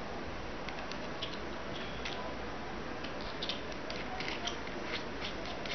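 Scattered light clicks and ticks of a small metal LED flashlight's head, lens and body being handled and fitted together, over a steady hiss. The clicks come more often in the second half.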